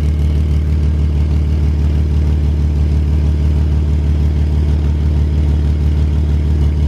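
Volkswagen R32's 3.2-litre VR6 engine idling steadily, its exhaust blowing through a leak at the sleeve joint by the back box.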